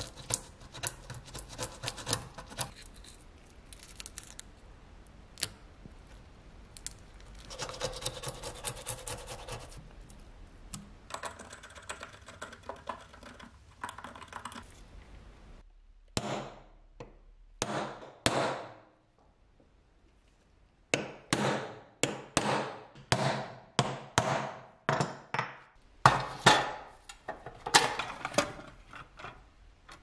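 A snap-off utility knife blade scraping old, flaking paint off the steel frame of a pistol spark lighter, in rough strokes, for about the first half. After a short pause comes a quick run of sharp metal taps with a brief ring, as a punch is worked against the frame.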